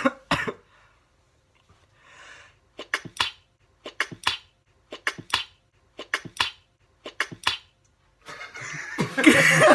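A person doing a staged string of short, sharp sneezes: a faint breath in, then five quick sneeze bursts about a second apart. Loud laughter breaks out near the end.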